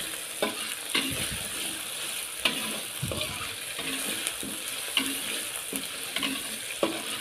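Spice paste sizzling in hot oil in an aluminium wok as a metal spatula stirs it, the spatula clinking and scraping against the pan every second or so. The paste is being sautéed until cooked.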